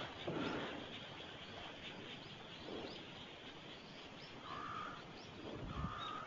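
Quiet outdoor ambience with faint high bird chirps throughout, and two short wavering bird calls, one about four and a half seconds in and one near the end.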